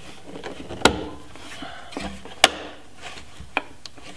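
Round LED taillamp being pushed by hand into its bezel and snapping into place: three sharp clicks, one about a second in, the loudest at about two and a half seconds, and a lighter one near the end.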